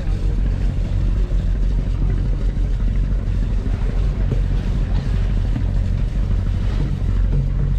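A passenger boat's engine running steadily under way, a constant low drone, with water washing along the hull.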